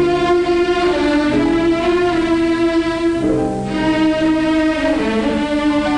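Background orchestral film music led by bowed strings, playing long held notes that change pitch every second or two.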